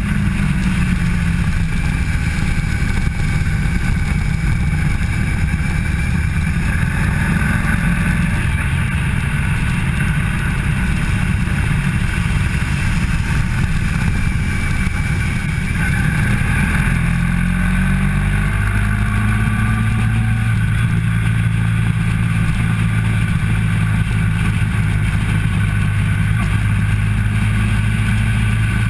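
Onboard sound of a motorcycle at speed on a racetrack: its engine running steadily under load, the engine note shifting in steps about halfway through and then holding steady.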